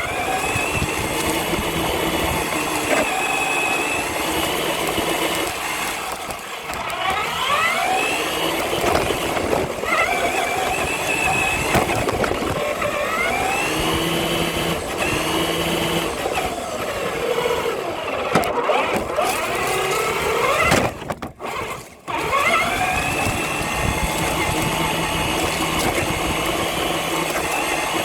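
Electric drive motor of a six-wheel-drive Traxxas RC hauler truck whining, its pitch rising and falling again and again with the throttle, over a steady rushing noise of the tyres on the ground. The sound drops away briefly about three quarters of the way through.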